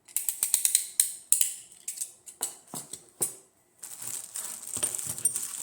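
Hand tools from a toolkit being handled: a run of sharp clicks and light clatters, then a denser rustling from about four seconds in.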